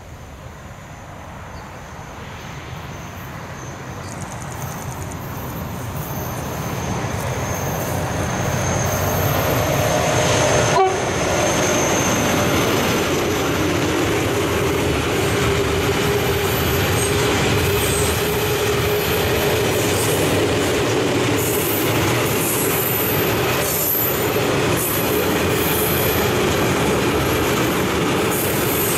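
A Bombardier TRAXX diesel-electric locomotive hauling a tank-wagon train approaches, growing steadily louder for about ten seconds, with a thin high whine over it. After the locomotive passes, the tank wagons roll by in a steady loud rumble of steel wheels on the rails.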